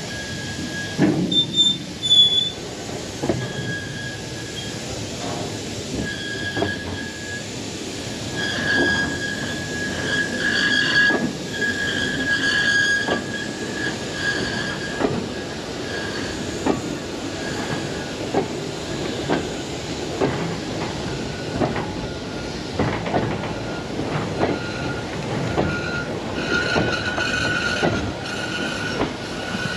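Railway train running on jointed track: wheels clack over the rail joints about every second or two, under a high, wavering squeal of wheel flanges against the rails. The squeal is loudest between one and two and a half seconds in.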